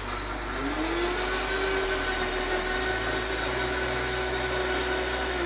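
Professional countertop blender motor spinning up about half a second in, then running steadily at high speed as it purées lime juice, garlic and dried chiles de árbol into a sauce. The pitch starts dropping as it winds down at the very end.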